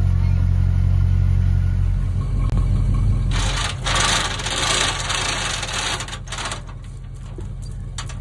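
Tow vehicle's engine idling steadily, with a loud hiss lasting about three seconds in the middle; the engine sound drops off somewhat after that.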